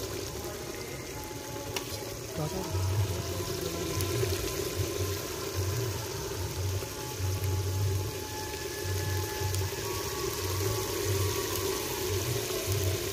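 Large aluminium pot of curry liquid boiling over an open wood and palm-leaf fire: a continuous bubbling hiss with irregular low rumbles.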